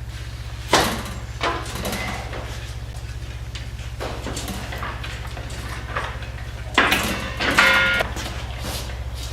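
Metal clanks in a workshop: two sharp knocks near the start and two more about seven seconds in, the last with a short metallic ring, over a steady low hum.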